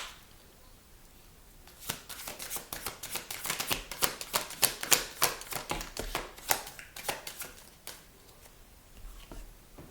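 A deck of tarot cards being shuffled by hand: a rapid run of card flicks and slaps that starts about two seconds in and stops about eight seconds in.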